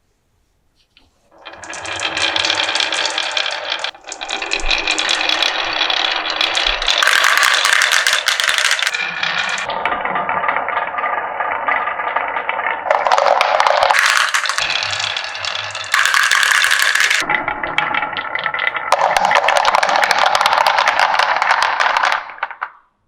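Marbles rolling and clattering down a marble run, a dense rattle that changes character every few seconds as they pass through different track sections. It starts about a second and a half in and stops just before the end.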